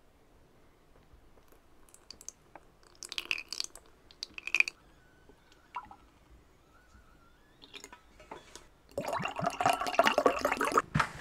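Water poured into a glass of rhubarb cordial to dilute it: a splashing pour lasting about two seconds near the end, the loudest sound here. Earlier come a few short clinks and scrapes, a spoon against a ceramic bowl.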